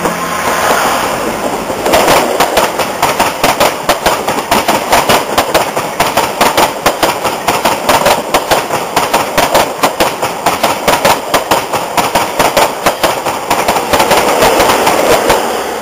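First Great Western HST passing at speed close by: a rapid, even clatter of the Mk3 coaches' wheels over the rail joints over a loud rush of air and rolling noise. Near the end the rear class 43 power car goes by with a louder rush, and the sound then fades as the train moves away.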